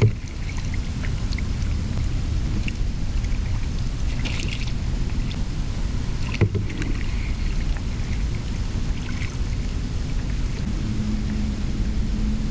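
Kayak paddling on calm water: paddle dips and splashes over a steady low rumble, with two sharp knocks, one at the start and one about six seconds in.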